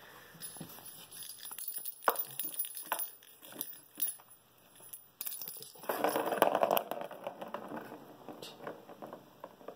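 A plastic ball rattling and rolling in the plastic track of a cat's circular ball-track scratcher toy as a cat bats at it. There are scattered clicks and knocks, and a louder stretch of rolling about six seconds in.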